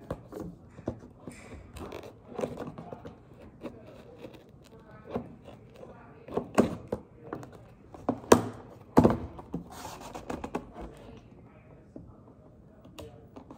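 Scissors snipping and scraping through the tape seals of a cardboard Lego box, with knocks of the scissors and box, loudest in a few sharp clicks about six and a half, eight and nine seconds in.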